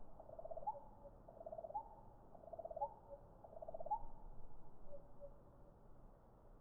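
A bird calling faintly and muffled: four repeated phrases about a second apart, each a quick rattle ending in a short rising note, then softer notes near the end.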